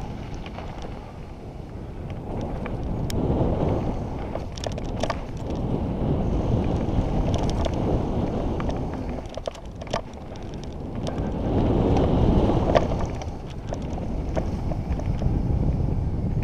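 Downhill mountain bike running fast over dirt and loose gravel: wind buffeting the helmet-camera microphone, with tyre rumble and scattered sharp clicks and rattles. The rush swells twice, about three seconds in and again around twelve seconds in.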